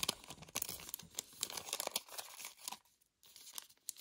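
A trading-card pack's wrapper tearing and crinkling as it is pulled open by hand. The crackling is densest in the first two seconds, then dies down to a few scattered crinkles.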